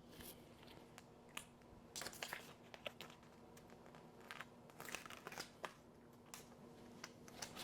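Faint, scattered crinkling, scraping and small clicks of hands working a sticker label on a pantry container.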